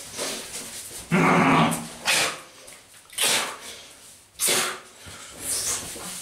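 A man's wordless, strained vocal outburst: a loud drawn-out yell about a second in, then several short, harsh, breathy bursts.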